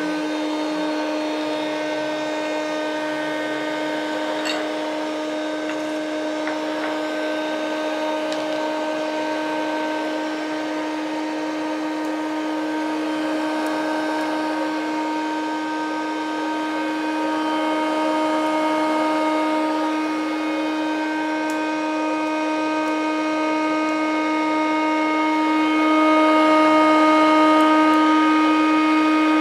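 Elite hot-air popcorn maker running while roasting peanuts without oil: a steady motor whine and rush of blown air, holding one pitch. It gets a little louder near the end.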